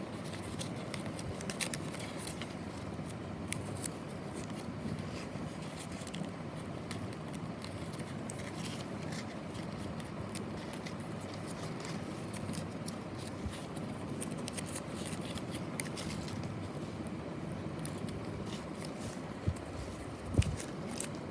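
Packaging being handled and opened: scraping and small clicks over a steady background noise, with a sharp knock near the end.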